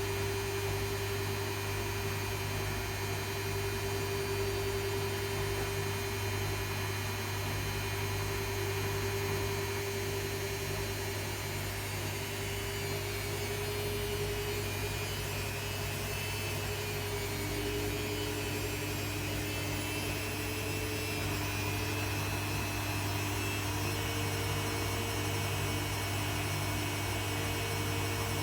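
Arçelik 3650 SJ washing machine spinning a quilt: a steady motor hum with a whine that slowly rises in pitch, and a second, lower whine joining about two-thirds of the way through.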